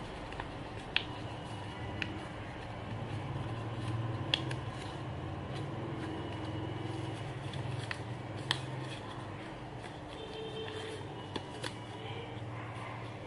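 Origami paper crinkling and crackling as it is folded and creased by hand, with a few sharp crackles, over a steady low hum.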